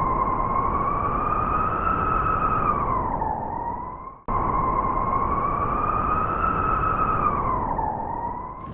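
Wolf howl, one long call that wavers slightly and falls in pitch at the end, heard twice in a row identically over a steady hiss.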